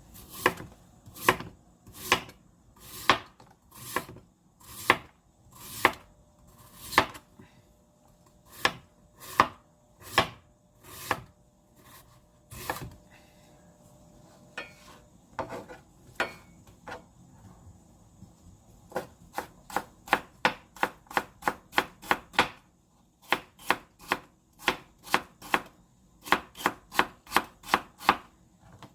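Kitchen knife cutting vegetables on a cutting board. About a dozen slow, even strokes come about one a second, then after a pause of several seconds with a few faint taps, faster chopping at two to three strokes a second.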